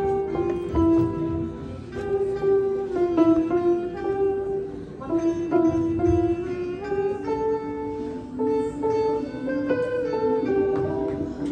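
Yamaha portable electronic keyboard playing a melody, a higher line of notes moving over lower ones, the notes changing a few times a second.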